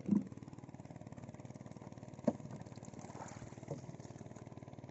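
Small engine idling steadily, with a thud right at the start and a single sharp knock a little after two seconds in.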